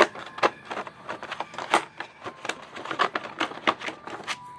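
Game cards and cardboard components being handled: irregular clicks, taps and rustles as cards are flipped and set down on a table.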